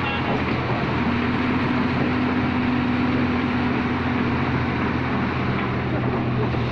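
Hyundai excavator's diesel engine running steadily under load as it swings its boom and bucket, with a humming tone that holds through the middle and a lower hum under it.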